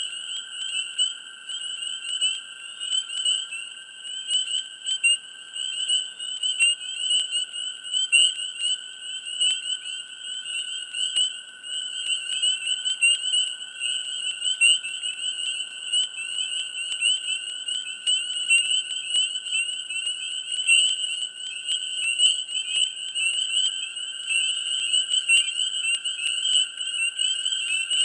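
Dense chorus of many frogs calling at once, a continuous high-pitched wall of overlapping calls without a break.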